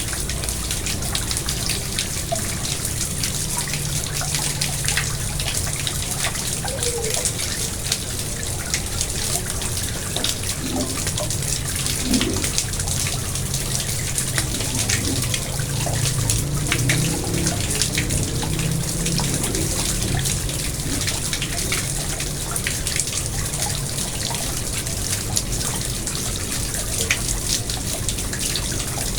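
Garden pond water trickling and splashing steadily, with many small drips and splashes.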